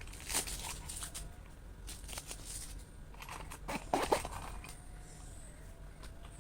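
Crinkling and rustling of gift packaging being handled, in two bouts of crackles, the louder one about four seconds in.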